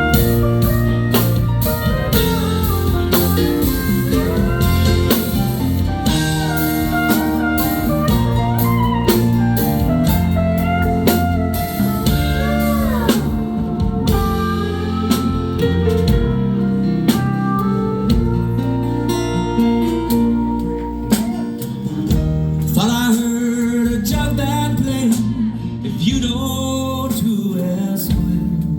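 Live rock band in an instrumental break: a lead guitar plays a solo with bending notes over bass guitar and a drum kit.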